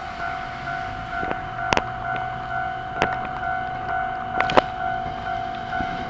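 Level-crossing warning bell ringing in a steady repeating pattern while an E217 series electric train passes slowly. A few sharp clacks come from the train's wheels on the track.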